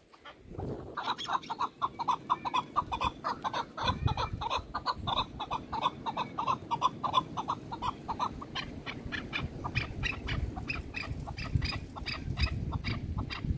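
Chukar partridges calling: a fast, continuous run of short repeated notes, several a second, starting about a second in, over a low rumbling noise.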